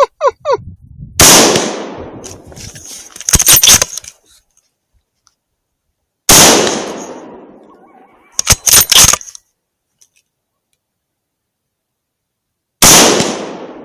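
Three gunshots about five and a half seconds apart, each followed by a long echo that fades over a couple of seconds. After the first two shots comes a short cluster of sharp clicks. A few brief animal yelps are heard right at the start.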